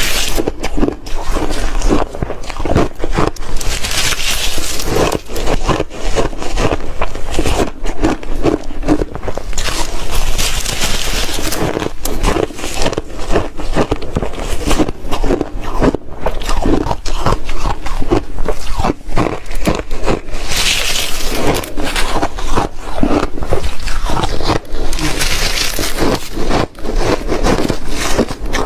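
Close-miked chewing of soft re-shaved freezer ice: a continuous run of crunches, with four stretches of brighter, hissier crunching spaced several seconds apart.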